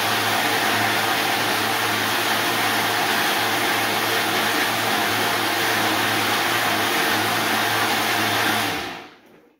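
Electric kitchen grinder running steadily at full speed, chopping garlic cloves into oil until the mixture is liquid. Its motor is switched off about nine seconds in and winds down quickly.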